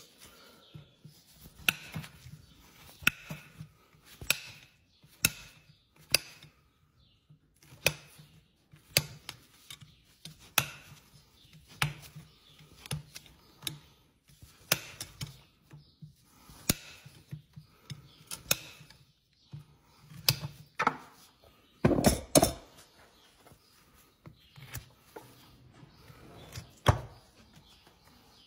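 Farrier's hoof knife paring the sole and frog of a horse's hoof, giving sharp cutting strokes about one a second at uneven spacing, with a louder pair of strokes about two-thirds of the way through.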